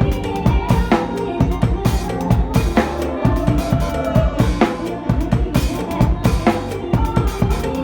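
Drum kit playing a fast, driving mor lam beat, with bass drum and snare hits several times a second, over a mor lam backing track with melody instruments.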